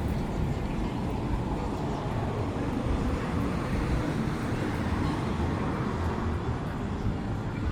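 Steady city street traffic noise, vehicles running along a busy boulevard.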